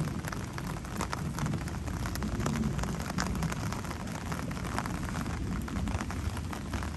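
Rain falling during a thunderstorm, with many small drops ticking close by over a steady low rumble.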